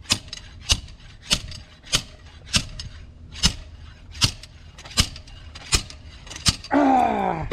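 Homemade slide hammer striking repeatedly, sharp metal-on-metal knocks about once every two-thirds of a second, as it tries to pull a fuel injector stuck fast by carbon build-up. A falling-pitched groan from a person comes near the end.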